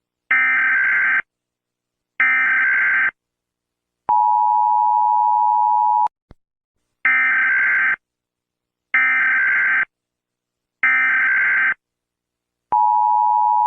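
Emergency Alert System tones: short screeching bursts of digital header data, under a second each and sent in a row, alternating with the steady two-tone attention signal. Two bursts, then the attention tone for about two seconds, three more bursts, and the attention tone starting again near the end.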